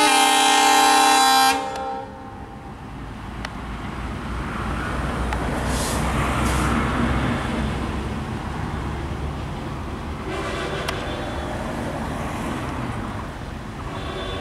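WDM3A diesel locomotive's horn sounding loudly for the first second and a half, then cutting off. After that the locomotive's engine rumbles as it pulls its train out, growing louder over several seconds and then running steadily.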